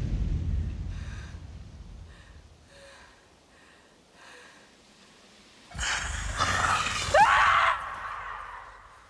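Film sound effects: a low rumble fading out, then a few soft gasping breaths. About six seconds in, a sudden loud rushing sound with a rising whine breaks in and dies away near the end.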